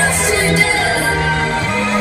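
Loud electronic dance music from a DJ set, with a heavy bass line that changes note about every half second under higher synth parts.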